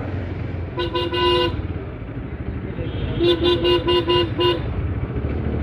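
Vehicle horn tooted in short beeps: three quick beeps about a second in, then a rapid string of about six beeps a couple of seconds later. A steady motorcycle engine and road rumble runs underneath.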